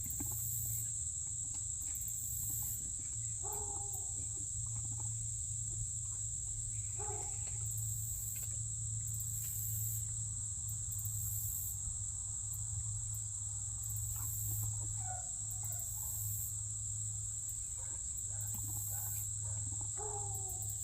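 Insects trilling steadily in a high, unbroken drone over a low steady hum. A short pitched animal call comes about four times, a few seconds apart.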